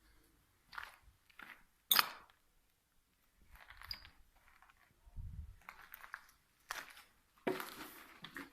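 Footsteps crunching on debris, irregular steps with a sharper crack about two seconds in.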